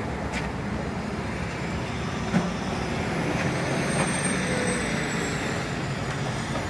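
Steady city street traffic rumble, with a few short knocks, the sharpest about two and a half seconds in.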